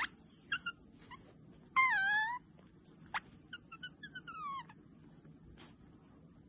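An otter squeaking and chirping: a few short high chirps, then a longer whining call about two seconds in that dips and rises again, then a quick falling run of chirps around four seconds in. A sharp click about three seconds in.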